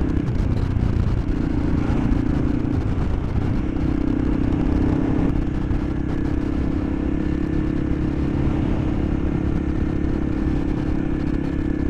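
Single-cylinder Honda motorcycle engine running at a steady road pace, its note dropping away briefly a couple of times in the first few seconds, with wind rumbling on the microphone.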